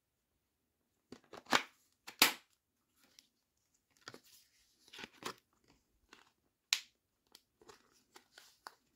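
Handling noise from a cordless power tool and its battery: hard plastic knocks, scrapes and clicks as a 20V lithium-ion battery pack is slid onto a SKIL brushless reciprocating saw and the saw is turned over in the hands. The two loudest scrapes come about a second and a half in and again just after two seconds, with a sharp click later on.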